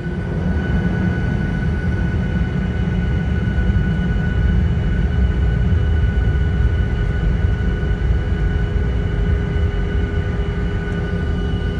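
Cabin noise of a Boeing 737-900ER taxiing: a steady low rumble from the CFM56-7B engines at taxi power and the aircraft rolling on the taxiway, with a steady high whine over it.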